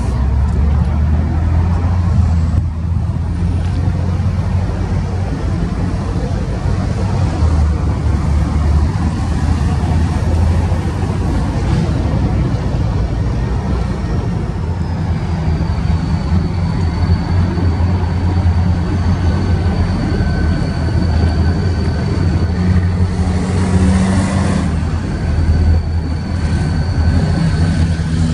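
Diesel engines of two BNSF freight locomotives running as they pull a string of boxcars past, a steady low rumble. A thin high whine comes in about halfway through and holds almost to the end.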